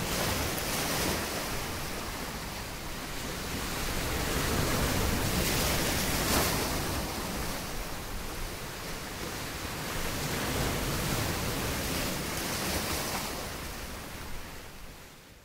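Ocean waves washing: a steady rushing noise that swells and eases every few seconds, then fades out near the end.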